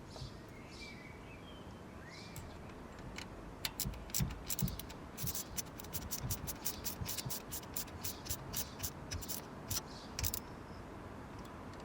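A run of quick, sharp clicks, irregular at a few a second, starting about four seconds in and stopping a couple of seconds before the end, over a low steady background.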